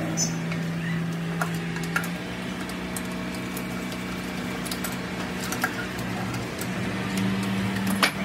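Hex keys and hands working on a truck's air brake pedal valve assembly: scattered small metal clicks and taps, the sharpest just before the end. Under them runs a steady low drone that steps up in pitch twice.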